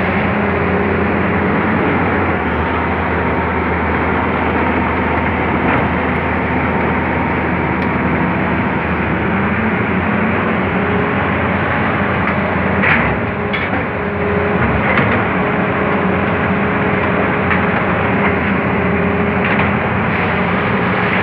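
Tata Hitachi crawler excavator's diesel engine running steadily under load while it works a clamshell grab, with a few brief knocks past the middle and near the end.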